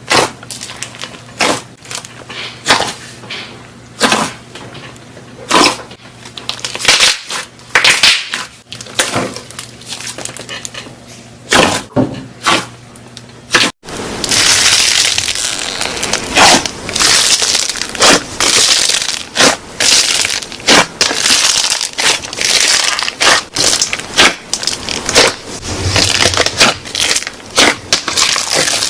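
Crunchy slime being squeezed and pressed by hand, crackling and popping in irregular bursts. About 14 seconds in, after a brief break, the crackling turns denser and more continuous.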